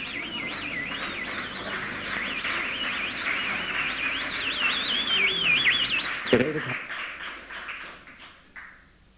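Modular synthesizer running at full stack: a dense noisy wash under a fast-warbling, siren-like high tone. A little after six seconds it breaks off with a thump and dies away.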